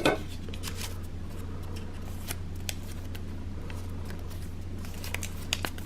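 Paper raffle tickets rustling and ticking as one is drawn from a metal can and unfolded, with a sharper knock at the very start. A steady low hum runs underneath.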